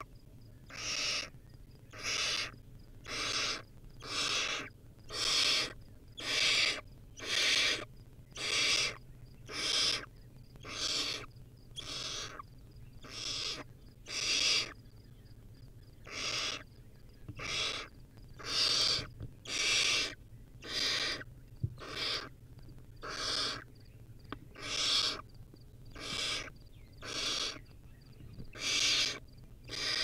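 Barn owl nestling giving its hissing, snore-like begging calls: a steady run of rough hisses, each about half a second long, repeating roughly every three-quarters of a second.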